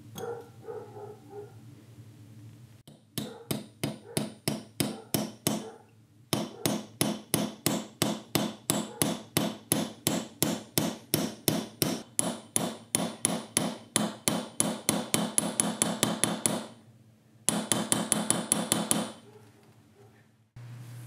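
Hammer striking metal in quick, even blows, about four to five a second, in three runs with short pauses between, the longest lasting about ten seconds. A steady metallic ring carries under the blows.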